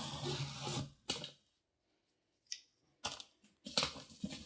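Scissors slicing along the packing tape on a cardboard box, a steady scrape for about a second ending in a click. After a short quiet, cardboard flaps are pulled open with clicks, scraping and crinkling.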